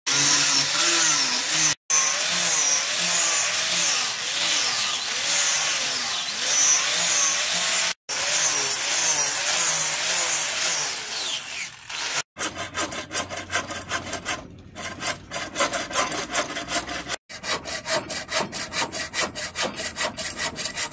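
Electric angle grinder with a sanding disc running against a wooden axe handle, its motor pitch wavering as it is pressed into the wood, with two brief breaks. About twelve seconds in it gives way to a hacksaw cutting the wood in quick, even back-and-forth strokes.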